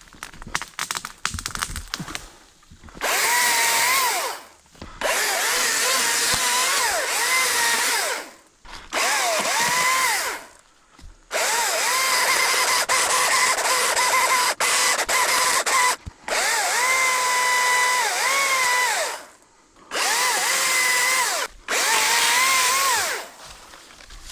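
ECHO DCS-2500T cordless top-handle chainsaw running in about seven bursts of a few seconds each, its electric motor whine dipping in pitch as the chain bogs in the wood. The first burst starts about three seconds in, after some rustling and clicks.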